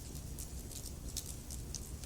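Wood fire crackling: irregular sharp pops and snaps, about half a dozen in two seconds, over a low steady rumble of the burning fire.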